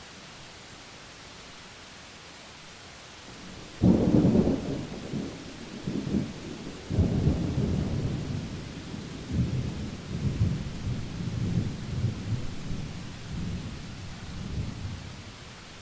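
A thunderclap about four seconds in, then thunder rolling and rumbling low for about ten seconds, swelling again near seven seconds before fading, over a steady hiss of rain.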